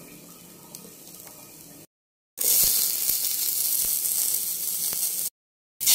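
Chopped garlic and sliced red onion sizzling in hot oil in a stainless steel pan. The sizzle is faint at first, then loud and steady after the sound cuts out for a moment.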